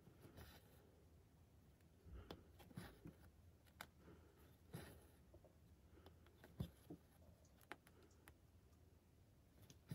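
Faint, irregular taps and soft swishes of a needle piercing 18-count Aida fabric and embroidery floss drawn through it during cross-stitching, about eight of them over the stretch.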